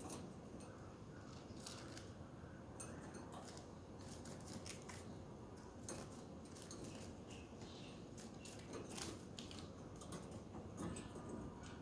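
Budgies making soft, irregular clicks and scratchy ticks, faint against low room noise.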